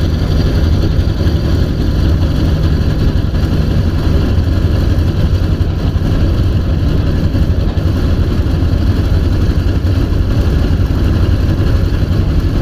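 An engine running steadily at an even speed, a loud low drone that does not rise or fall.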